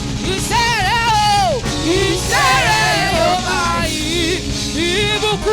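Live gospel praise music: a single voice sings a gliding, melismatic line without clear words over a band holding steady low notes.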